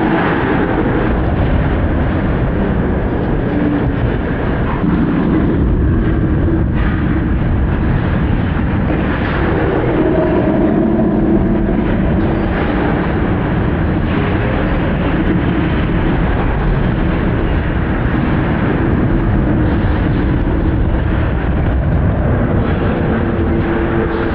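Steady rumbling din of a busy bowling alley: balls rolling down the lanes, with occasional crashes of pins.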